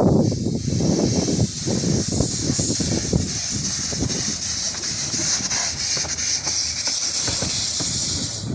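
Small narrow-gauge steam locomotive moving slowly with its cylinder drain cocks open: a loud, steady hiss of escaping steam over low, uneven chuffing.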